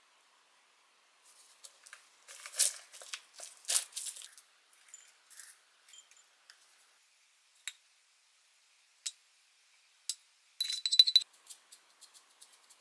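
Plastic lid of a fried-onion tub pulled off with a crinkle and a few sharp ticks, then crispy fried onions sprinkled by hand onto salad in scattered light ticks. Near the end, a short, louder rattle of clicks.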